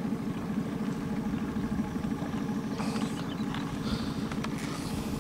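Outboard motor of a small motorboat running steadily, a fast low even drone of firing pulses.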